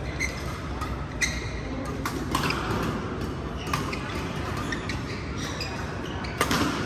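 Badminton rally: racket strikes on a shuttlecock, a sharp hit roughly every second or so, with shoes squeaking on the court.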